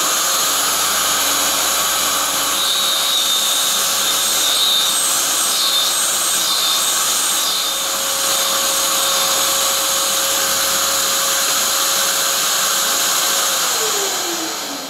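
Tool and cutter grinder running, its fine diamond wheel grinding the side rake on a brazed carbide lathe tool bit, with a brighter hiss while the carbide is against the wheel in the first half. Near the end the motor is switched off and spins down with a falling hum.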